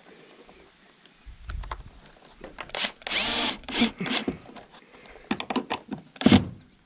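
Cordless Milwaukee drill/driver driving screws into the wood behind the siding to fix a camera mount. The motor runs in a longer spell about three seconds in, then in several short trigger bursts, the last and loudest near the end as the screw seats, with clicks and handling knocks between.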